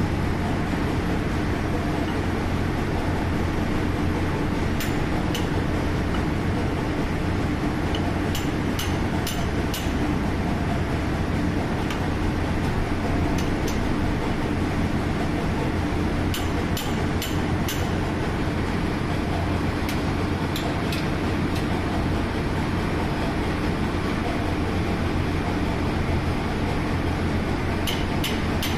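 Steady, loud drone of a ship's engine-room machinery with a low hum, and short metallic clicks in small clusters as a spanner works the nuts on a pump strainer cover.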